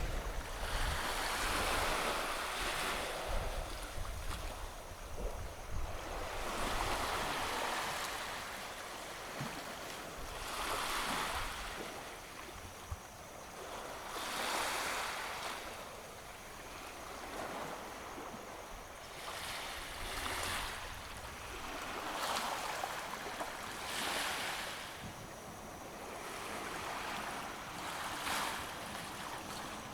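Sea waves washing onto a sandy beach, a hiss of surf that swells and fades every three to five seconds. Wind buffets the microphone with a low rumble during the first several seconds.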